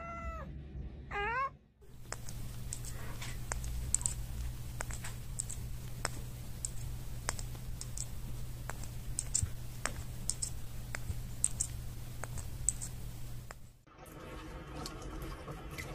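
A cat meows twice, short falling calls, in the first second and a half. Then comes a long run of irregular sharp clicks and ticks, several a second, over a low steady hum.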